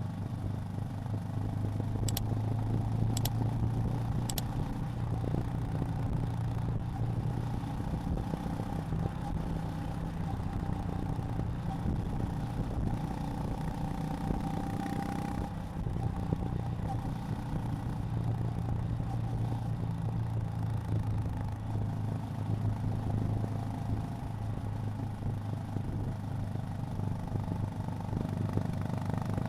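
Honda GB350's air-cooled single-cylinder engine running steadily under way, with a deep even exhaust beat. Three short high clicks come a couple of seconds in.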